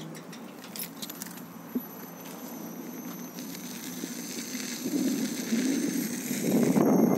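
A few light clicks and rattles in the first second or so, then a rushing noise that grows louder over the last couple of seconds as the electric unicycle picks up speed, typical of wind on the microphone.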